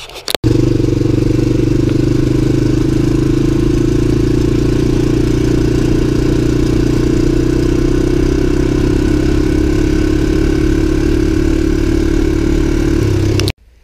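Small off-road vehicle engine, an ATV, running steadily at an even speed while driving along a dirt track. It starts suddenly near the beginning and cuts off abruptly near the end.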